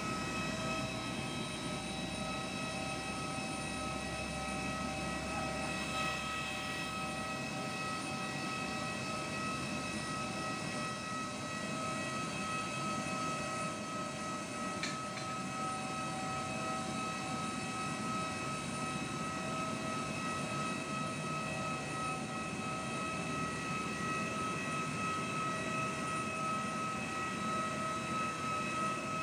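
Airbus A320 airliner's steady, high turbine whine over a low rumble while a tug pushes it back from the gate.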